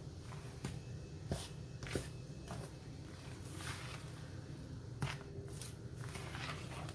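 Scattered light knocks and clicks of a mixing bowl and kitchen utensils being handled, about eight in all, over a low steady hum, while buttermilk is worked into cornmeal and flour for cornbread batter.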